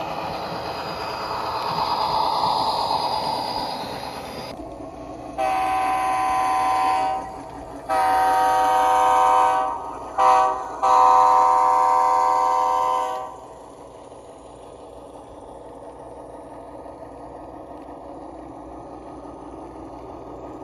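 Sound-equipped HO-scale GE C44-9W model locomotive blowing its horn in the grade-crossing pattern: long, long, short, long. Before the horn, a louder swell of noise cuts off suddenly; after it, a quieter steady running sound.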